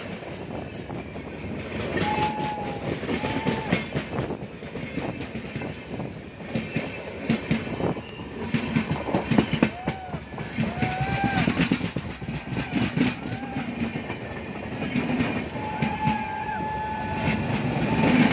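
Passenger train coaches rolling past close by: a continuous rumble with irregular clattering knocks from the wheels over the rail joints. Short high tones that rise and fall come through now and then, and one is held for about a second and a half near the end.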